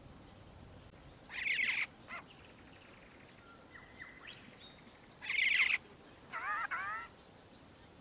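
Black-faced cuckoo-shrike calling: two loud rolling calls about four seconds apart, then a quick run of rising notes near the end, with fainter short bird notes in between.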